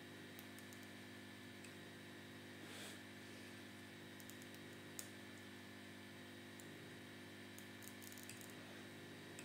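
Near silence: a faint steady electrical hum with a few soft, scattered clicks, one about five seconds in and a small cluster near the end.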